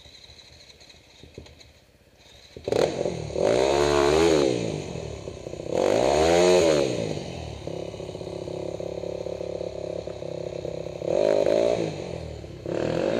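Dirt bike engine revving in three bursts, pitch rising and falling with each throttle opening, and running more steadily between them while the bike climbs a rocky trail section. Quieter for the first couple of seconds before the revving starts.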